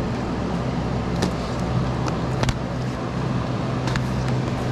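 A steady low machine hum, like an engine or motor running, with a few short, light clicks.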